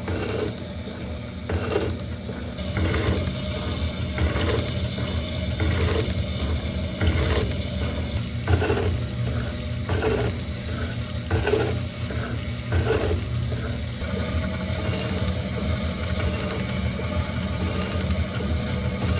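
South Bend 7-inch metal shaper running, its ram cycling about once every second and a half with a clack and ratchet-feed click on each stroke. About two-thirds of the way through the strokes give way to a steadier hum.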